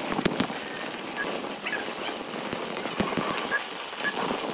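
Electric arc welding on a truck axle: a steady hiss with irregular sharp crackles from the arc.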